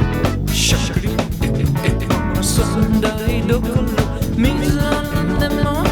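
Recorded pop song played by a band, with guitar and drums, and a man singing over it.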